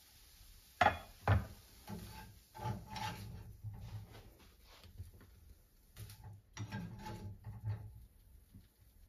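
A glass pan lid is set down on a countertop with two sharp knocks about a second in. Then a black spatula scrapes and taps in a nonstick frying pan as cooked broccoli and chicken are scooped out, with repeated rubbing scrapes and light knocks.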